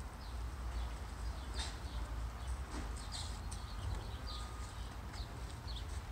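Outdoor ambience: a steady low rumble with scattered short, high chirps of small birds and a few faint knocks.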